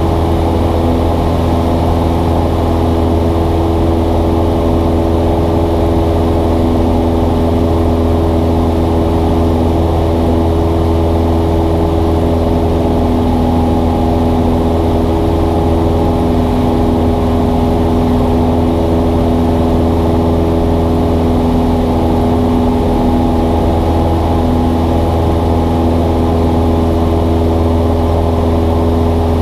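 Cessna 172's piston engine and propeller droning steadily, heard inside the cabin as a loud, even hum with a few steady tones above it.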